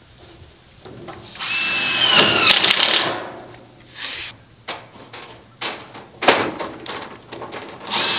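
Cordless drill driving screws through a sheet-metal ridge cap into the wooden frame: the motor runs for about a second and a half with its pitch climbing, then several short clicks and knocks follow, and the drill starts again near the end.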